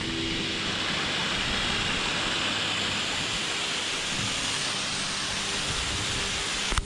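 Small waterfall from a cliff-top land drainage gutter pouring down the cliff and splashing onto the beach, a steady rush of running water; it is in full flow after heavy overnight rain. A single sharp click just before the end.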